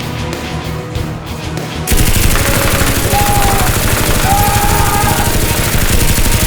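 Background music, then about two seconds in a sudden, continuous burst of very rapid machine-gun-style fire that carries on to the end, louder than the music.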